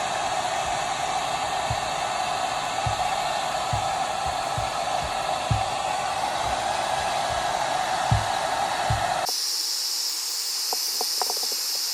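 Hot-air blower running steadily, heating an adhesive textured grip wrap on a pistol frame so it molds to the frame, with a few soft low knocks from handling. About nine seconds in the sound cuts abruptly to a thinner, higher hiss.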